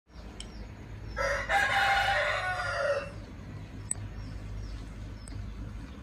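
A rooster crowing once, a long call of about two seconds starting a little over a second in, followed by a few faint chirps over a low steady hum.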